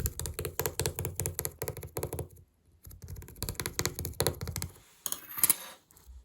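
Rapid light tapping and clicking in two runs of about two seconds each with a short pause between, then a brief louder burst of noise near the end.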